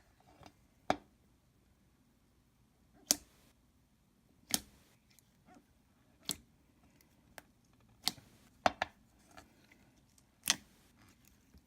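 Thick clear slime with beads being worked by hand, making a series of sharp pops and clicks about a second or more apart.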